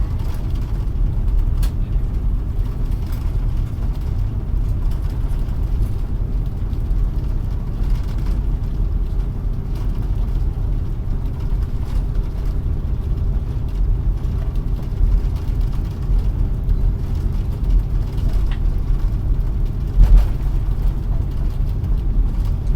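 Steady low rumble inside an Airbus A330-300 cabin as the airliner taxis after landing, engines at idle, with a faint hum over it. A few light clicks and a short thump about twenty seconds in.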